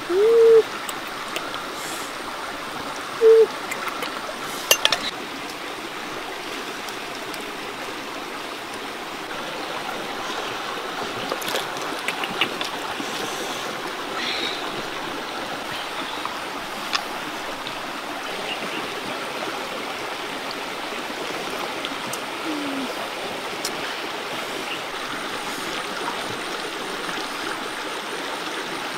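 Steady rush of running water, like a stream, throughout. Two short pitched calls stand out, one at the start and one about three seconds in, and a few sharp clicks follow around five seconds in.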